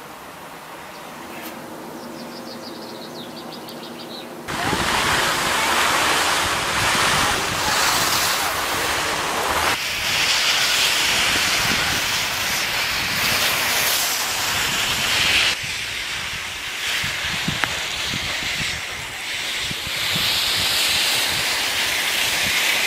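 Skis hissing and scraping over snow while wind rushes across the microphone during a downhill run. It starts about four seconds in and shifts in level several times, after a quieter opening with a faint low hum.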